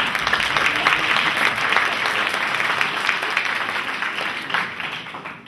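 Theatre audience applauding, a dense spread of many hands clapping that dies away near the end.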